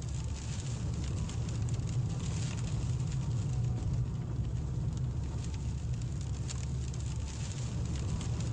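Inside a moving car in heavy rain: a steady low rumble of engine and road noise, with rain pattering and ticking on the windscreen.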